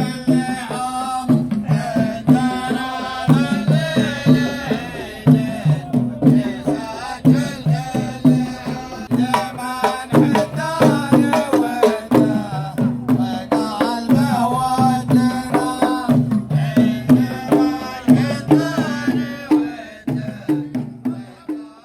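Music with a steady drum rhythm under a melody, fading out near the end.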